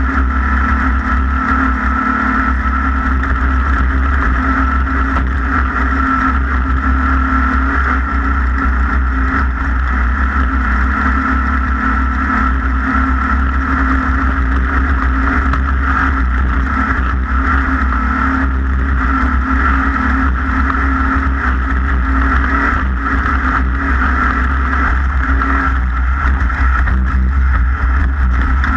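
A racing engine running steadily at a constant, unchanging pitch, with a strong low rumble.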